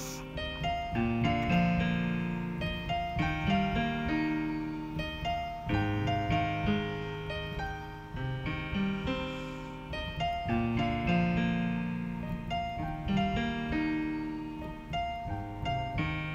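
Piano music: a flowing melody over chords, each note struck and fading away, with no singing.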